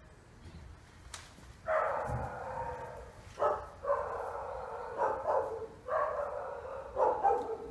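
A dog barking and yelping several times in a row, starting about two seconds in.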